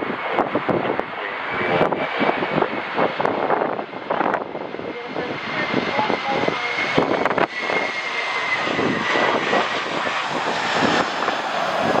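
An airliner's engines running as it passes, a steady high whine over a rushing noise, with storm-wind gusts buffeting the microphone in repeated knocks.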